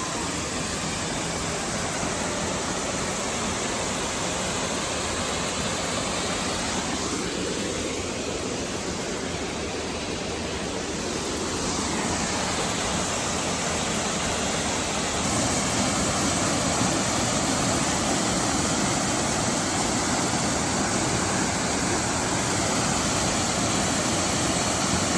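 Bridal Veil Falls pouring: a steady rush of falling water that grows a little louder and brighter about fifteen seconds in.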